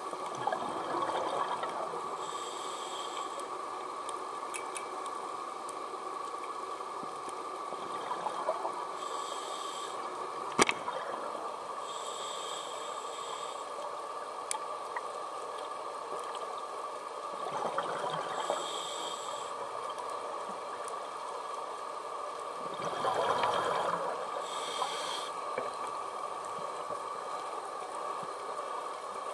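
Scuba diver breathing through a regulator, heard underwater: short hissing inhalations and bubbly, gurgling exhalations every several seconds over a steady underwater hum. One sharp click about a third of the way in.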